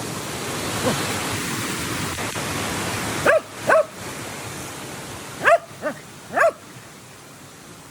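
A dog barking five short times, in a pair and then a group of three, over the steady rush of creek water.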